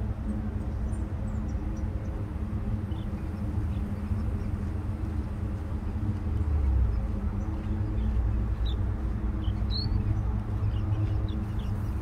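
A steady low rumble with a faint hum runs throughout. Over it come short, high peeps from small shorebirds, scattered and more frequent in the second half.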